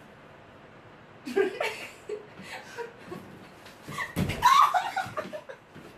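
People laughing in a small room, starting about a second in and growing louder near the end.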